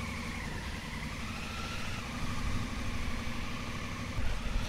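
Motorcycle engine running at idle, a steady low rumble that grows louder about four seconds in.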